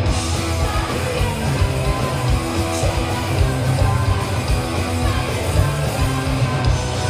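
Loud punk rock music with distorted electric guitars and drums, a voice possibly singing over it.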